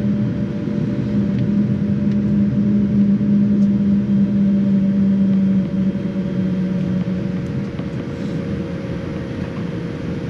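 Boeing 787 cabin noise while taxiing: a steady engine rumble with a low hum. The hum stops a little after halfway and the noise eases slightly.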